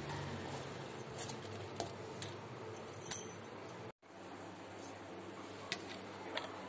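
Chopped onion pieces handled in a plastic colander: faint light clicks and rattles over steady background noise, with a brighter clink about three seconds in. The sound drops out abruptly at about four seconds, then the steady noise returns with a few scattered ticks.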